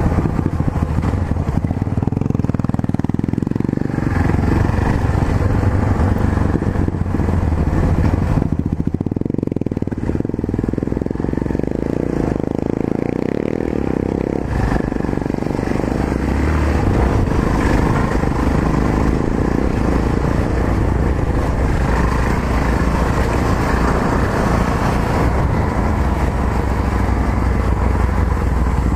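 Yamaha XT660Z Ténéré's single-cylinder four-stroke engine running while the motorcycle is ridden, its note rising and falling with the throttle, over steady riding noise.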